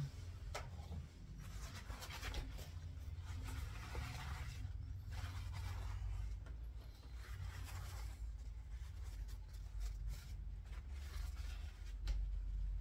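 Repeated wiping strokes as lapping compound is rubbed off the scope rings, each stroke about a second long, over a low steady hum.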